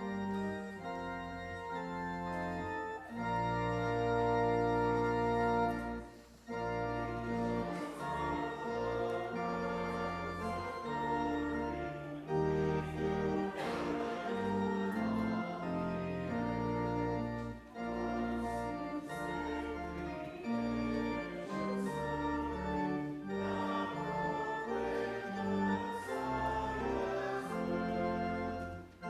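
Church organ playing the opening hymn: full held chords over a bass line, moving in phrases with short breaks between them.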